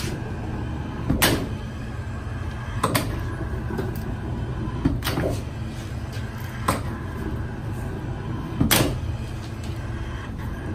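Roddie R8 hydraulic pipe bursting machine at work: a steady low hum from its hydraulic drive, with a sharp clack about every two seconds, five in all, as the machine cycles.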